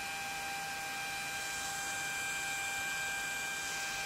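Electric fan running steadily about five inches from a phone microphone: an even airy hiss with a faint steady whine, no rattle or knocks.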